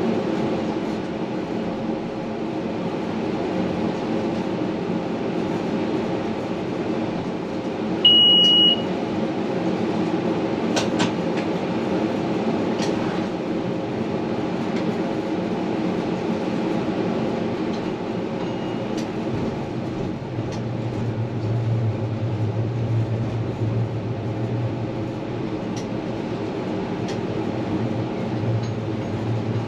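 A Lyon tramway car running, heard from inside at the front: a steady hum and rolling noise, with one short high beep about eight seconds in and a few light clicks soon after. A deeper hum comes in about two-thirds of the way through and holds on.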